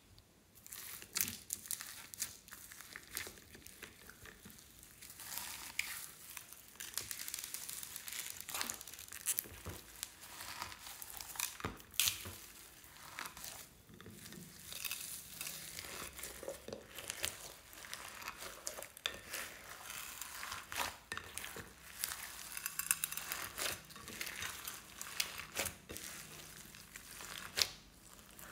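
Hands folding and squeezing slime loaded with foam beads and sprinkles, giving irregular crackling and clicking with squishy sounds, and a few louder snaps.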